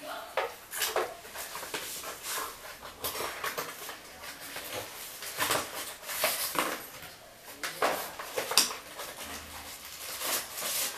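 Unboxing handling noise: irregular rustles and knocks as a plastic TV stand base and cardboard packing are handled and set down on a tile floor.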